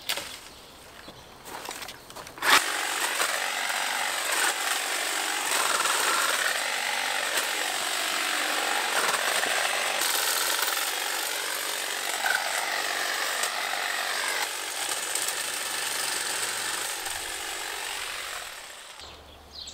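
A power saw starts about two and a half seconds in with a sharp knock and runs while cutting branches, its pitch dipping and rising as it bites, then winds down near the end.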